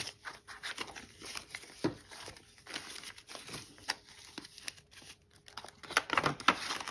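Paper banknotes and cash envelopes being handled and shuffled, rustling in a run of short, irregular strokes, with a louder flurry near the end.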